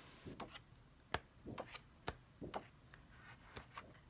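Pages of a scrapbook paper pad being turned by hand: faint, irregular light ticks and short paper rustles.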